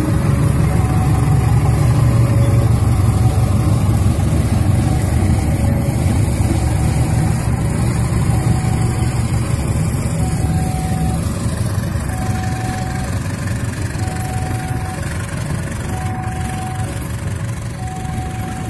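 Diesel-hauled passenger train passing at close range: the locomotive's engine rumbles loudly at first, then the coaches roll over the rails as the rumble slowly fades. Over it the level crossing warning alarm keeps sounding, a short two-note signal alternating high and low about once a second.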